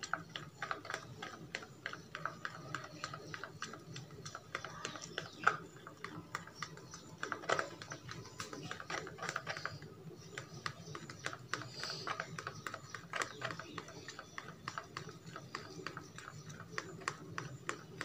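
A white plastic spoon stirring dish wash compound and water into a thick gel in a plastic tub, clicking and knocking against the tub's sides in quick irregular clicks, several a second.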